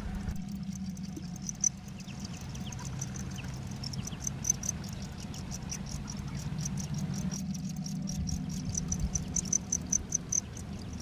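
Crickets chirping in rapid trains of high-pitched pulses, over a steady low hum, with a couple of short louder ticks.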